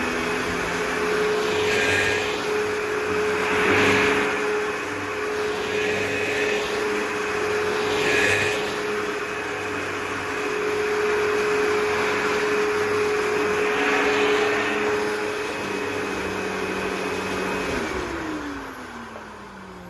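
Upright vacuum cleaner running steadily with a constant motor whine and a few brief louder swells, then switched off about 18 seconds in and spinning down with a falling pitch.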